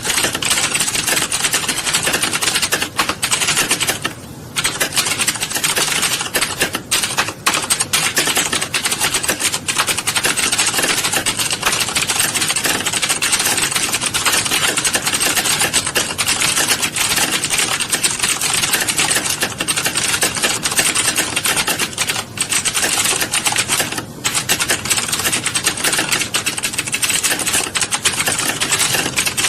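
Fast, continuous typing on a keyboard, a dense stream of key clicks with brief pauses about four seconds in and again near the end.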